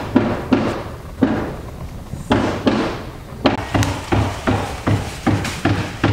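A run of sharp knocks, each with a dull thud, sparse at first and then coming evenly about two and a half times a second from about halfway in.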